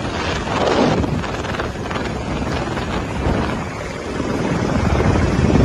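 Helicopter engine and rotor noise heard from inside the cabin: a steady loud rush with wind on the microphone.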